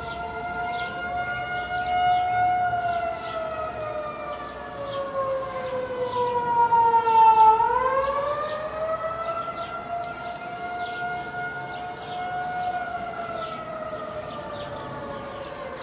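Outdoor tornado warning siren wailing on a chord of several tones. Its pitch sags slowly, bottoms out about halfway through where it is loudest, then rises again as the sound fades back.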